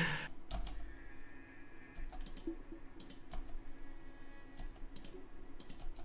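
About eight sharp computer-mouse clicks, scattered and some in quick pairs.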